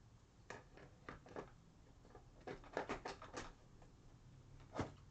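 Faint, scattered light clicks and knocks: a few at first, a quick cluster in the middle, and one sharper knock near the end.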